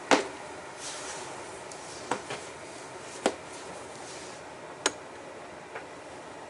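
Several sharp clicks and knocks at irregular spacing, the first the loudest and the last faint, as of hard objects being handled, over a steady low hiss.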